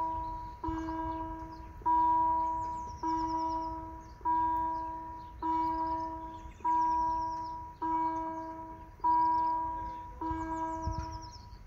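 Level-crossing warning bell striking at an even pace of about one stroke every 1.2 seconds, each stroke ringing out and fading; the strokes stop near the end. Birds sing in the background.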